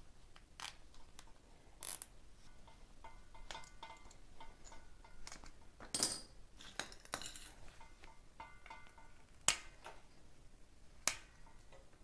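Zip ties being pulled tight around wiring on a bicycle frame: short runs of quick ratchet clicking, with several separate sharp clicks and snaps, the loudest about half-way through.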